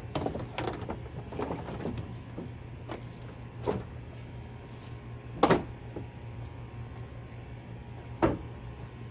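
Knocks and clunks of a truck's front bumper being handled and fitted: a quick run of rattling knocks at first, then single sharp knocks a couple of seconds apart, the loudest near the middle. A steady low hum runs underneath.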